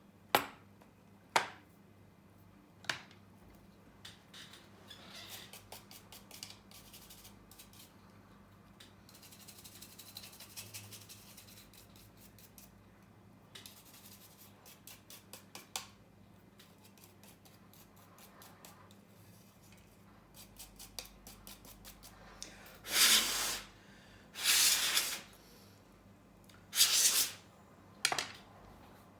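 Hand-tool work on an iPhone 8 Plus housing as it is prepped for new rear glass: scattered clicks and scraping, then three loud hissing bursts of about a second each near the end.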